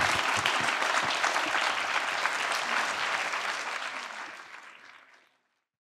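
Audience applauding, a dense patter of many hands clapping that fades out over the last couple of seconds and stops about five seconds in.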